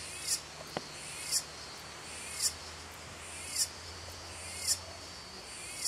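A short, high chirp repeated about once a second, six times: a small animal calling, over a faint steady low hum.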